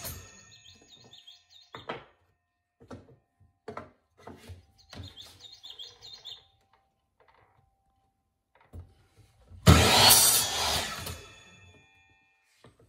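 Miter saw crosscutting a pine strip about ten seconds in: a sudden burst of motor and blade noise for over a second, then fading as the blade spins down. Before it, the end of the previous cut dies away, followed by light knocks of wood being set on the saw table.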